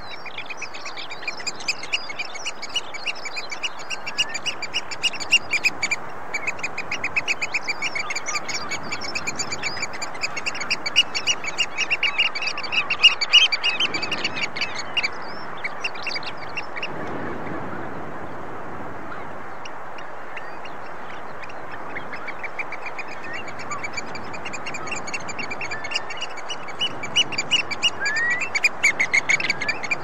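Oystercatcher calling: rapid runs of repeated shrill piping notes over a steady background hiss. The piping thins out about halfway through, leaving mostly the hiss, then picks up again near the end.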